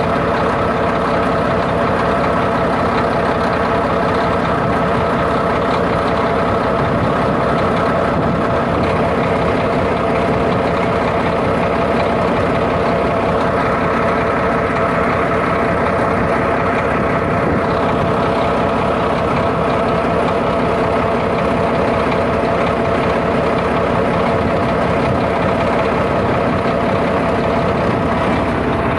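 Freshly overhauled bulldozer's diesel engine running steadily, with a steady whine over the engine.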